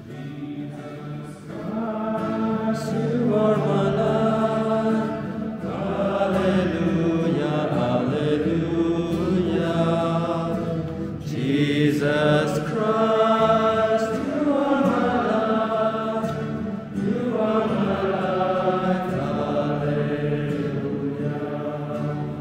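A group of voices singing a slow, chant-like hymn in phrases a few seconds long, over steady held low notes.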